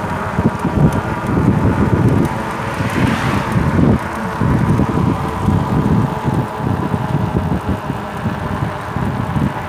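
Wind buffeting the microphone in uneven gusts, over the steady hum of a motor vehicle's engine running at low road speed.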